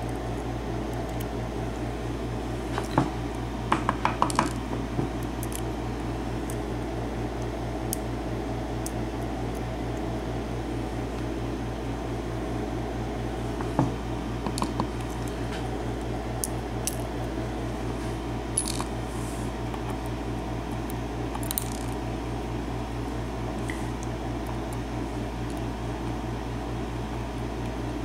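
Metal tweezers picking small lock pins out of a padlock plug and setting them down in a pin tray: scattered faint metallic clicks and ticks over a steady low hum.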